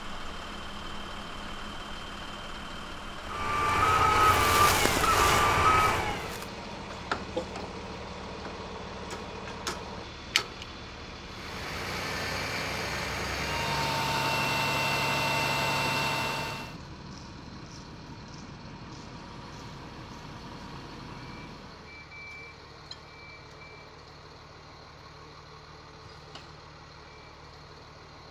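Heavy trucks running: a reversing beeper sounds for a couple of seconds a few seconds in, over a steady low engine idle. Later a crane truck's engine runs louder for about five seconds while the crane lifts a load.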